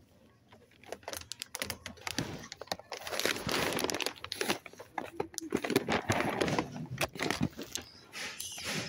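Irregular crinkling and rustling close to the microphone, starting about a second in and loudest through the middle, with a final burst near the end.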